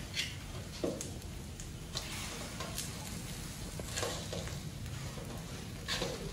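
Metal barbecue skewers and tongs clinking now and then over a low, steady sizzle of mutton cooking on a charcoal grill.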